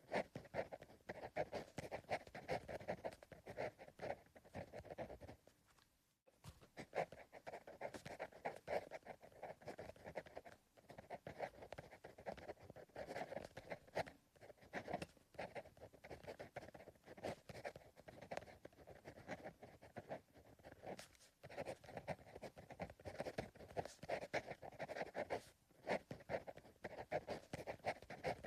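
Pencil writing on paper: quick, continuous scratching strokes, broken by a few brief pauses.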